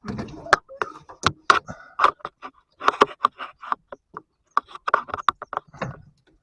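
Irregular clicks, taps and rustles of hands working an electrical connector back into place under a car's dashboard.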